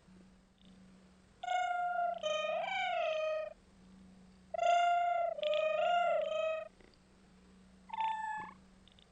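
Domestic cat meowing in three bouts of drawn-out, wavering meows, the last one short. A low hum stops and starts underneath.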